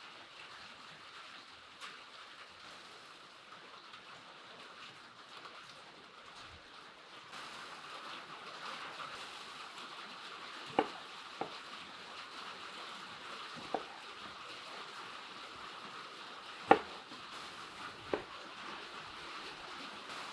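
Kitchen knife cutting through fresh red chilli peppers onto a wooden cutting board: five sharp chops spread out from about halfway in, the loudest near the end. A steady background hiss runs underneath and grows louder about a third of the way in.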